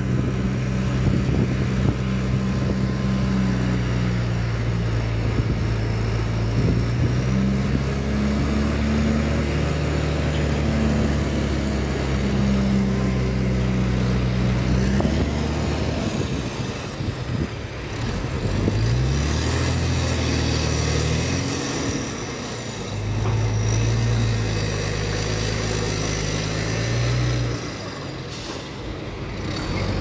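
Diesel engines of heavy earthmoving machinery running under load: a deep engine note that holds for about fifteen seconds, falls off, then climbs again twice as the machines work.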